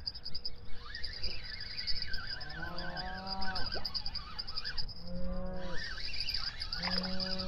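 Spinning reel on a feeder rod cranked in short bursts while a bream is played in: a whirring whine of just under a second, repeating about every two seconds as the angler pumps the rod and winds down. Its pitch rises as each turn speeds up and drops as it slows.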